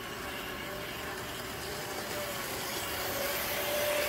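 N scale model train, a Pere Marquette Berkshire steam locomotive pulling freight cars, running on the track with a steady motor whir and wheel rumble that grows louder near the end as the train passes close by.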